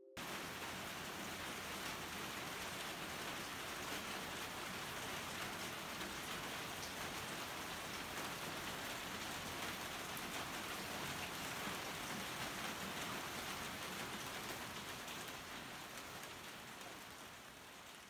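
Steady rain falling, an even hiss of drops on wet paving and roofing, growing fainter near the end.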